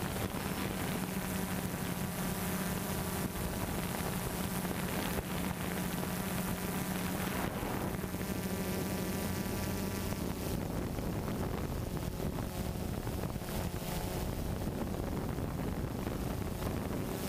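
DJI Phantom 2 Vision+ quadcopter's motors and propellers humming steadily in flight, with wind hiss. The tones of the hum shift about halfway through as the drone manoeuvres.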